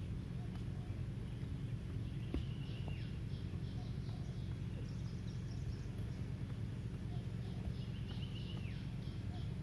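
A songbird calling twice: each call is a short high held whistle with a falling end, then a quick run of short high notes, over a steady low rumble.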